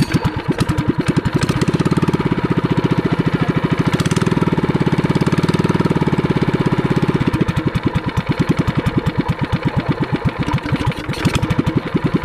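Small Sumo Rato SR75M boat engine running at a fast, even chug. It runs a little harder for a few seconds in the middle, then settles back.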